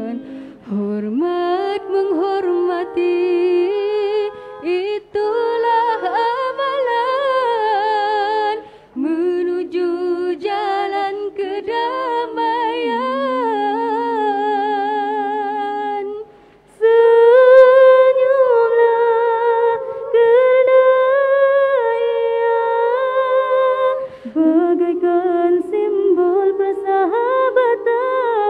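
Group of women singing a nasyid a cappella in harmony into microphones, with low voices holding steady notes under a wavering lead melody. Phrases break briefly three times, and the singing is louder in the second half.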